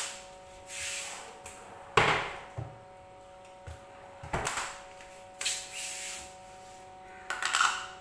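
Kitchen cupboards and containers being rummaged through: several knocks and scraping rubs, the two loudest about two and four and a half seconds in, and a quick run of clicks and clatter near the end, over a steady hum.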